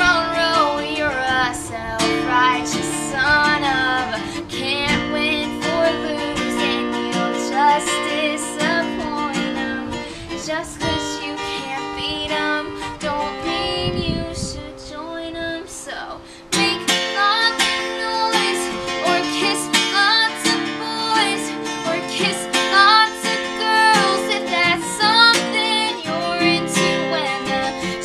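A woman singing a song while strumming an acoustic guitar. About halfway through the voice and guitar drop softer for a couple of seconds, then come back in suddenly louder.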